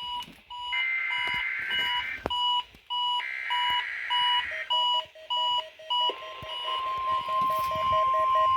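NOAA Weather Radio Required Weekly Test: two screeching bursts of digital SAME header data, with a receiver's short alert beep repeating about twice a second. About six seconds in, the steady single-tone weather radio warning alarm starts, with a faster, lower beeping under it.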